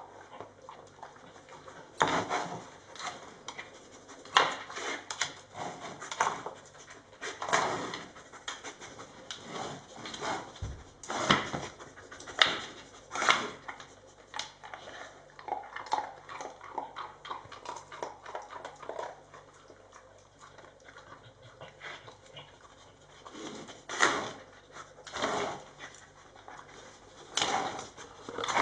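A beagle nosing and pawing at a disc-lidded treat-puzzle dog toy on a tiled floor: irregular knocks and clatter as the toy's lids shift and the toy bumps on the tiles.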